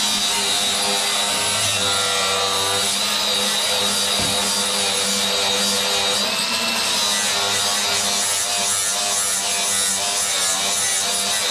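Angle grinder running steadily against sheet-metal floor pan, grinding off paint and rust down to bare metal to prepare the surface for welding.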